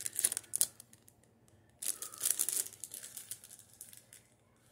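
Small clear plastic jewelry bags crinkling and rustling as they are handled: one burst right at the start, a longer one about two seconds in, then fainter rustling.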